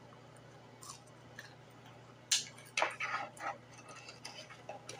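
Eating sounds from a crispy fried pork chop: scattered short crunches and mouth clicks, a few louder crackles about two to three and a half seconds in.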